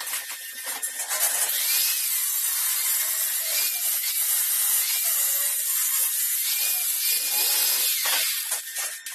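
Power tool, likely an angle grinder, grinding or cutting metal for about seven seconds. It gives a steady, hissing grind, and its whine dips and recovers several times as it is loaded.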